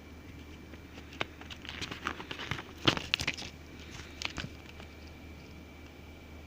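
Hands handling a CD album's packaging: a sharp click about a second in, a cluster of crinkling and tapping between about two and three and a half seconds, and another click a little after four seconds.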